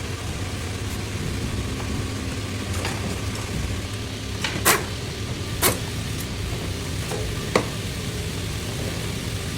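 Steady low machine hum over an even background noise on an overlock sewing machine assembly floor, with three sharp clicks or knocks in the second half.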